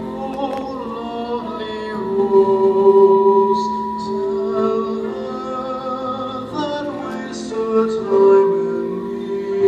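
Music with singing, the melody moving in long, held notes.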